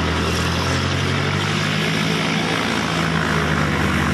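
A light aircraft's piston engine and propeller running steadily at power, heard as a continuous drone.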